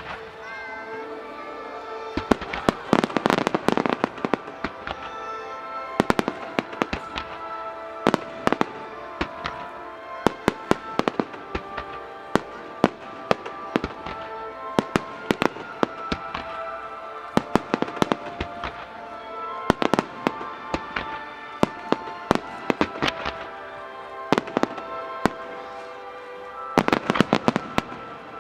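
A starmine fireworks barrage: rapid sharp bangs and crackles from aerial shells, with dense clusters about two to four seconds in and again near the end. Music set to the show plays underneath, with held notes throughout.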